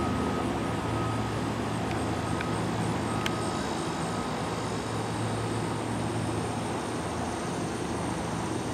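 Cessna 172M single-engine propeller plane flying over, its four-cylinder engine and propeller making a steady, even drone, with a couple of faint clicks.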